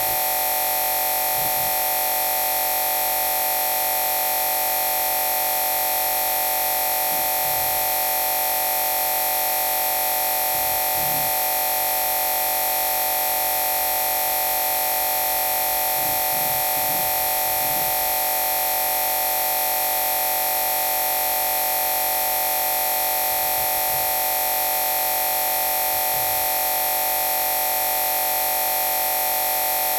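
Loud, unchanging electronic static with many fixed tones, the corrupt noise that replaced a phone recording's lost original audio. Faint short wavering low sounds come through it every few seconds.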